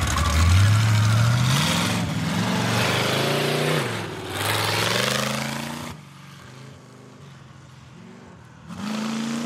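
Half-scale monster truck's engine revving hard as it pulls away, its pitch climbing over the first few seconds, dropping and climbing again, then fading as the truck moves off and rising once more near the end.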